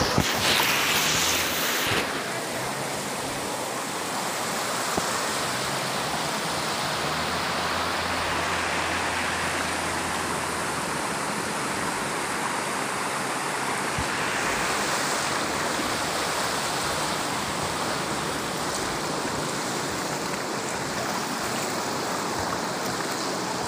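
Muddy floodwater rushing past in a steady wash of noise, a little louder for the first couple of seconds.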